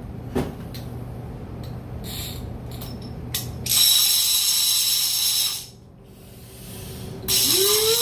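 A conventional fishing reel being cranked by hand. Its gears give an even, fast buzz in two spells of about two seconds each, with a few light handling clicks before them.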